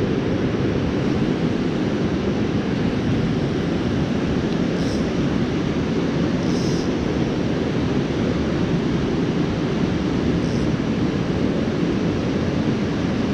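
Steady rush of river water running over rapids. A few brief faint high hisses come and go.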